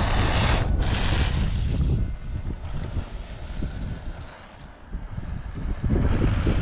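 Wind rumbling on the microphone over a 3D-printed RC snowmobile running across snow, its small electric motor and track. The sound is loud at first, drops away for a few seconds in the middle and comes back loud near the end.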